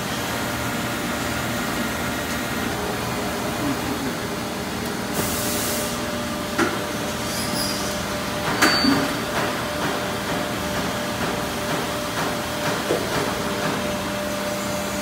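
Hydraulic injection moulding machine cycling: a steady hum, a short hiss about five seconds in, and sharp clunks about six and a half and eight and a half seconds in as the mould opens to release the moulded parts.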